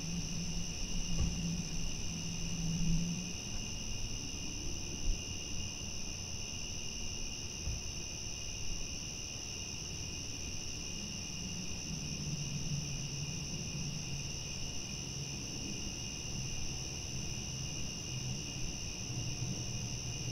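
Crickets chirping at night in a steady, unbroken high trill, with a faint low hum underneath during the first few seconds and again in the second half.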